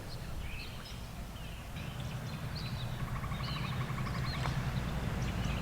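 Wild birds chirping and calling, one giving a buzzy rattling call for a few seconds, over a steady low rumble that grows slightly louder about two seconds in.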